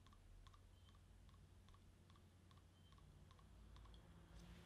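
Near silence: room tone with faint, evenly spaced clicks.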